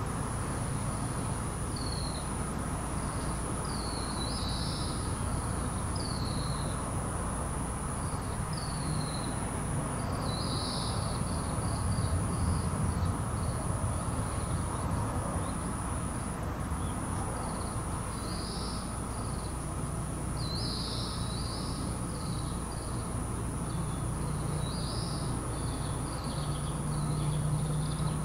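Small birds chirping in short, high, down-slurred calls every second or two, some in quick clusters, over a steady low outdoor rumble and a faint constant high whine.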